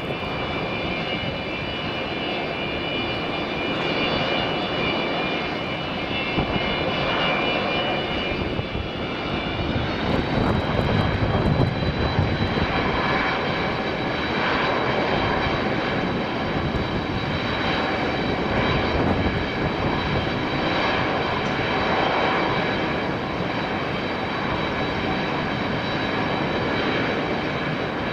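Jet airliner engines: a steady rush with several high whining tones over it, loudest about twelve seconds in as the aircraft passes.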